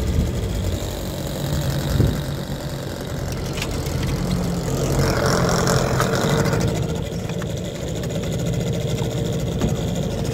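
Boat motor running steadily at low speed, with a brief rush of noise about five seconds in.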